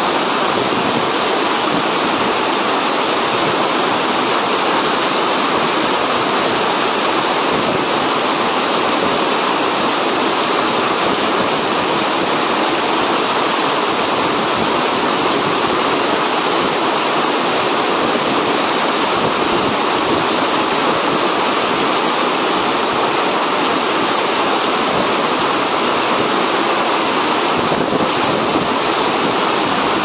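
White water cascading down a rocky channel between boulders: a steady, unbroken rush.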